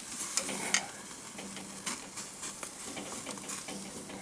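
Thin entrecote steaks sizzling on a hot charcoal grill grate, with frequent short, sharp crackles that are loudest in the first second.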